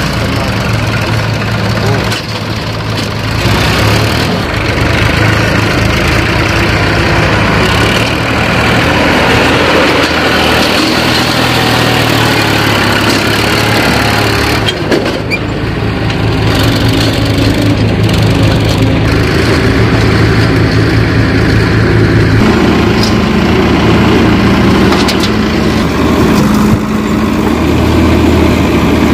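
Massey Ferguson tractor's diesel engine running hard under load as it pulls a fully loaded trolley. A backhoe loader's diesel engine runs alongside it.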